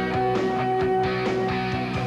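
Rock-style theme music with guitar, held notes over a steady driving beat.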